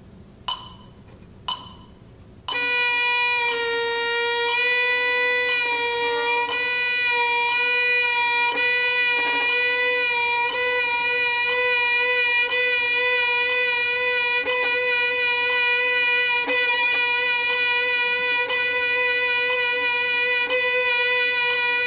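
Two metronome clicks about a second apart, then from about two and a half seconds in a student's violin holding one bowed note with a slow, even vibrato, the bow changing roughly every two seconds. This is a beginner's vibrato exercise played in time with a metronome.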